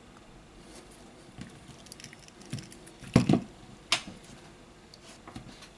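A few small clicks and taps from a disassembled smartphone and its parts being handled. The loudest are a knock about three seconds in and a sharp click about a second later.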